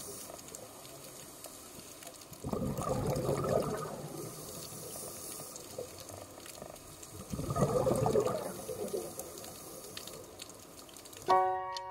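Underwater hiss with a diver's scuba regulator letting out exhaled bubbles twice, each burst about a second and a half long, some five seconds apart. Near the end a music note starts.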